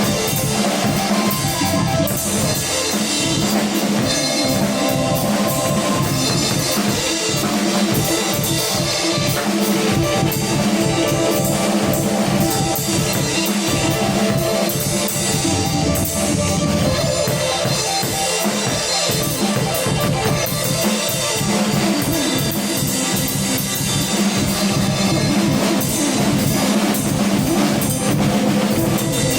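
Live instrumental music with a drum kit keeping a steady beat, kick and snare under sustained melodic and synth-like notes.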